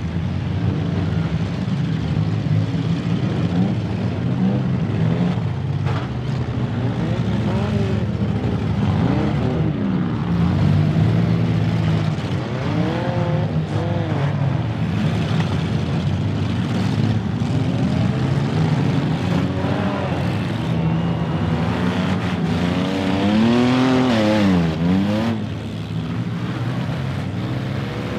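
Many demolition derby cars' engines running together and revving hard again and again as the cars spin and ram, with the biggest rise and fall in pitch about three quarters of the way through. Occasional sharp knocks of cars hitting one another cut through the engine noise.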